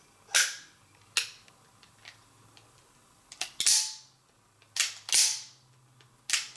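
Smith & Wesson 629 stainless revolver being worked by hand: about five sharp metallic snaps, roughly one every second or so, several of them preceded by a lighter click.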